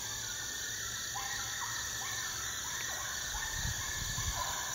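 Crickets and other insects making a steady high chorus, with a short animal call repeated about twice a second. A brief low rumble of wind on the microphone comes about three and a half seconds in.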